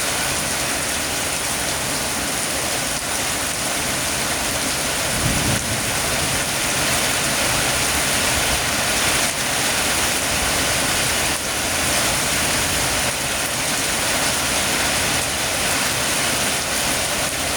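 Heavy rain falling steadily in an even, dense hiss, with a brief low rumble about five seconds in.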